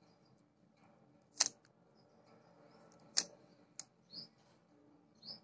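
Plastic 3x3 speed cube being turned by hand, its layers clacking as they turn: two sharp clacks nearly two seconds apart, then three lighter clicks.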